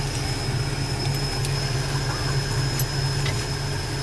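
Steady low drone of a military vehicle's engine running, heard inside the crew cabin, with a thin steady high whine over it and a few faint clicks of gear.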